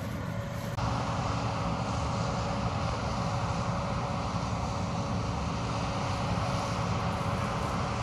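John Deere 9500 combine harvester running as it cuts wheat: a steady engine and machinery noise with a constant low hum, getting a little louder about a second in.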